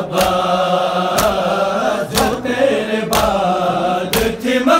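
A group of men chanting a noha lament in unison, with sharp slaps of hands beating on chests (matam) about once a second in time with the chant.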